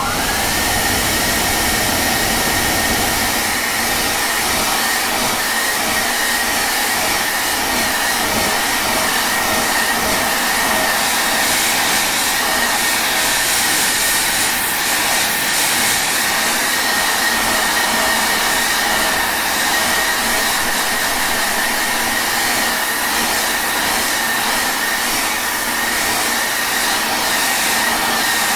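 Hair dryer running steadily: a constant rush of blown air with a high, even motor whine, coming up to speed at the very start.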